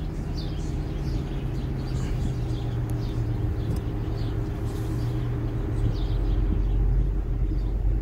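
A car engine running steadily under a dense chorus of many small birds chirping from a roosting tree at sundown. A deeper engine rumble swells about six seconds in.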